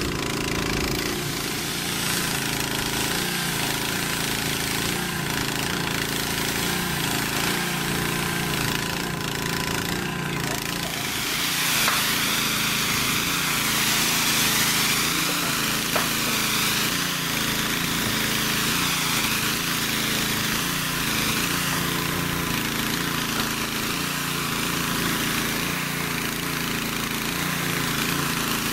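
Airless paint sprayer running steadily, with the hiss of roof coating spraying from the gun's tip onto corrugated metal roofing.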